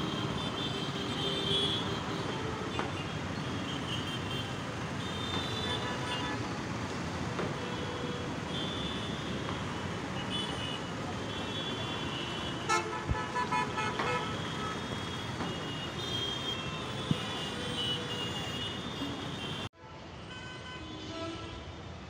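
Town traffic noise, with vehicle horns honking now and then and a quick run of horn toots about two-thirds of the way through.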